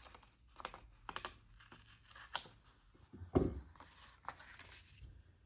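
Light rustling, clicks and taps of paper and sticker sheets being handled, with one louder thump about three and a half seconds in.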